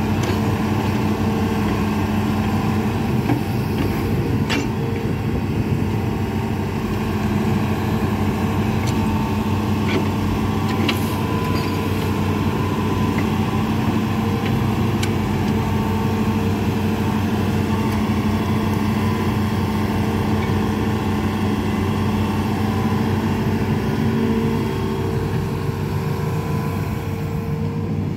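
Hitachi amphibious excavator's diesel engine running steadily under load while its boom and bucket work. A few short sharp metallic clicks are heard along the way.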